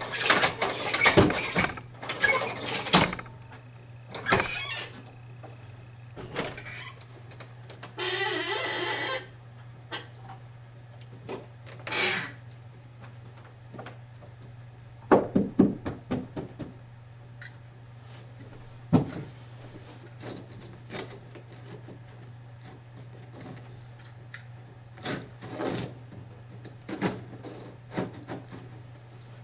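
Scattered knocks and clunks of carpet-stretching work, a clatter of them in the first few seconds, then single knocks every few seconds. About eight seconds in comes a second-long rasping scrape. A steady low hum runs under it all.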